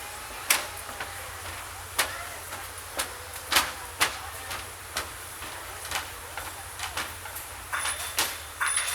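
Irregular sharp clicks or knocks, about one or two a second and coming faster near the end, over a steady background hum of a busy outdoor place.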